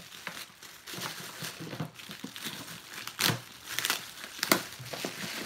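Clear plastic packaging bag crinkling as it is handled and pulled open, with irregular sharp crackles that are loudest about three and about four and a half seconds in.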